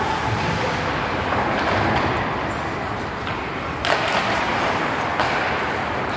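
Ice hockey in play: a steady hiss of skate blades on the ice, with two sharp knocks of stick or puck about four and five seconds in.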